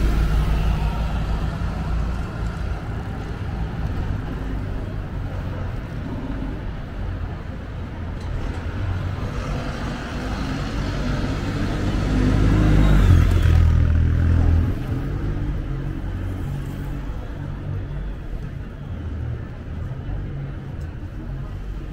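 City road traffic: a hybrid double-decker bus rumbles past at the start, and a large box lorry's engine swells to the loudest point about twelve to fourteen seconds in, then drops away abruptly. A lighter traffic hum runs underneath.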